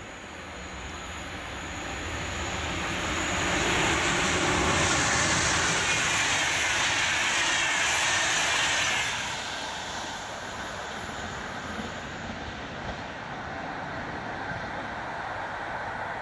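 Finnish VR InterCity 54 train (Sr2 electric locomotive with double-deck coaches) passing through the station at speed without stopping. The rumble and rush of wheels on rail build over the first few seconds, stay loud while the coaches go by, drop off sharply about nine seconds in as the last coach passes, then fade as a lower rush.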